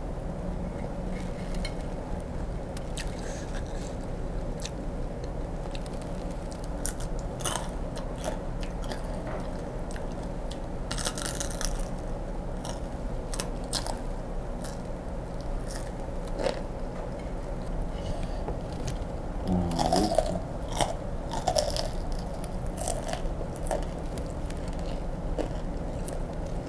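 Close-up crunching and chewing of crispy deep-fried grasshoppers, their shells cracking in scattered sharp crackles, busiest about eleven and twenty seconds in. A steady low hum lies underneath.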